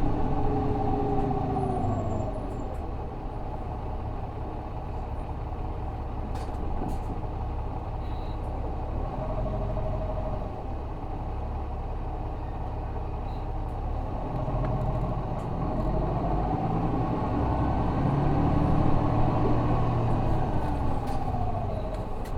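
Interior sound of an Isuzu Erga city bus under way, its 6HK1 inline-six diesel rumbling with a pitched drivetrain whine. The whine falls just after the start as the bus eases off, holds steady in the middle, then rises as it pulls away about fifteen seconds in and falls again near the end.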